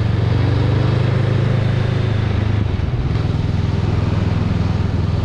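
Honda Rebel 500's parallel-twin engine running as the motorcycle rides along, with wind rush on the microphone. The engine note dips and changes briefly about three seconds in.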